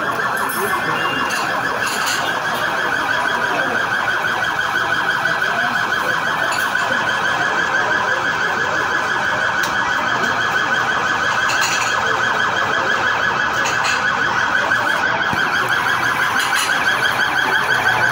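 Police car siren sounding continuously, a rapidly warbling tone held steady throughout.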